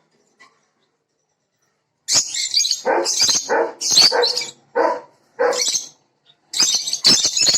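A run of about seven loud, short animal calls, starting about two seconds in and coming at uneven intervals, the last one longer.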